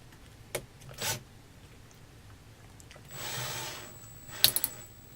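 A drill's chuck being handled as a needle-thin bit is tried in it: a couple of sharp clicks, a short spell of noise a little after three seconds in, and a quick run of clicks near the end. The chuck will not close small enough to grip the bit.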